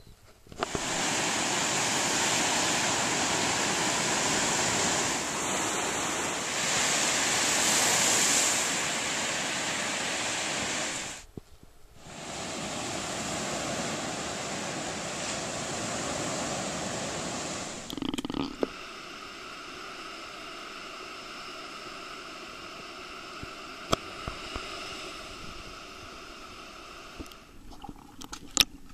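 Steady rushing noise of ocean surf, dropping out briefly about 11 seconds in. About 18 seconds in it gives way to a quieter underwater sound with a faint steady hum and a few sharp clicks.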